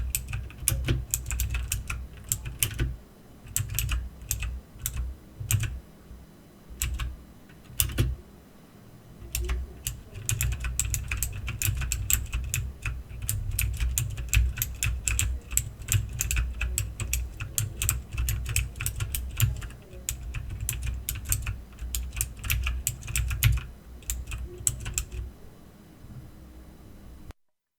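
Typing on an Aukey mechanical keyboard: runs of sharp key clicks with short pauses, then a long stretch of fast, steady typing that stops a couple of seconds before the end.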